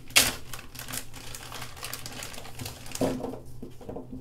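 Plastic zip-top bag crinkling and rustling as gloved hands open it and take out soap pieces, with a sharp, loud crackle just after the start and another about three seconds in.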